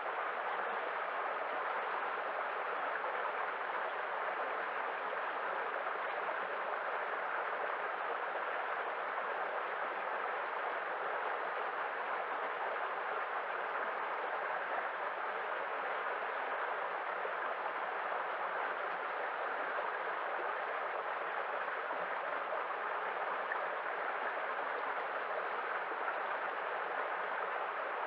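Waterfall: steady rushing water, an even hiss without pauses or splashes.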